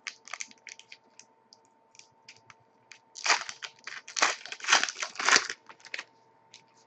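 Trading card pack wrapper being torn open and crumpled: light scattered clicks of cards being handled, then a louder run of crinkling and tearing lasting about two seconds, starting about three seconds in.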